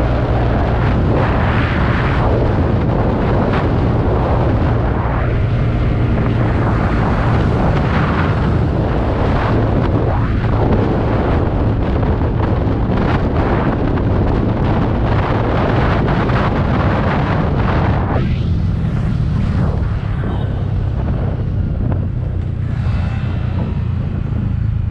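Heavy wind buffeting on the microphone and road noise from a TVS Ntorq 125 Race XP scooter ridden at around 80 km/h, with a steady low rumble; the hiss thins out near the end as the scooter slows to about 30 km/h.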